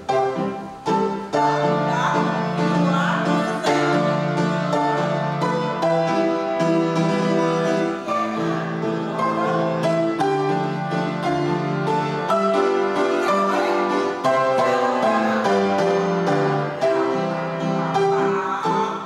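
Instrumental music: a steady succession of struck or plucked pitched notes, with a bass line, in an even rhythm.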